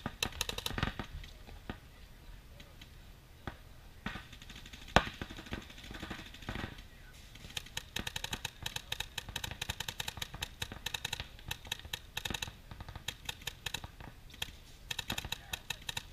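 Paintball markers firing in rapid strings of shots, with scattered single pops before and one loud sharp crack about five seconds in.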